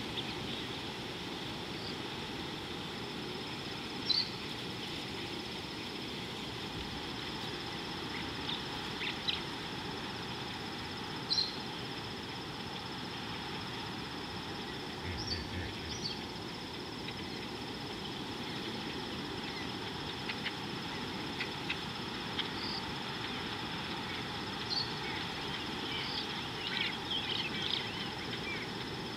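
Steady outdoor bush ambience: a constant high thin hum over a soft hiss, with short bird chirps scattered through it, a few clusters near the end.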